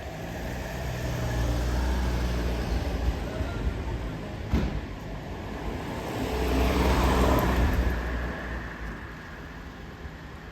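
Road vehicles passing: engine rumble and tyre noise swell and fade twice, around two seconds in and again, louder, around seven seconds in, with a single sharp click in between.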